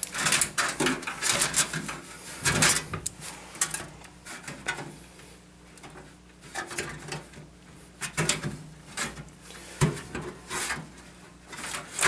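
Hands working inside a metal computer case, checking the screwed-in brass motherboard standoffs: scattered clicks and knocks of metal with some rustling, busiest in the first few seconds and again near the end.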